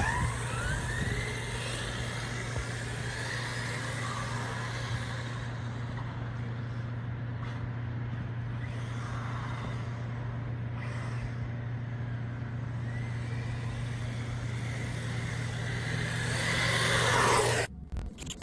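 Brushless RC truck driving, its motor whine rising and falling over a steady low hum and running noise. It swells louder near the end, then cuts off suddenly.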